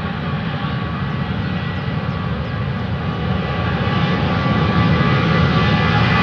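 Boeing 737-800's CFM56-7B turbofan engines running with a steady roar and a thin whine, growing louder through the second half as thrust comes up for the takeoff roll.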